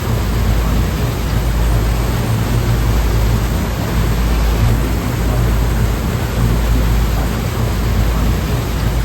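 Ocean surf: a continuous, even rush of waves with a deep low rumble, no single wave breaks standing out.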